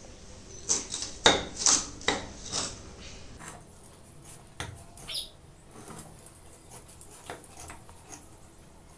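Green jackfruit being cut on a metal blade: a run of sharp knocks and crunching cuts in the first few seconds, then lighter scattered clicks as the cutting goes on. A short rising chirp about halfway through.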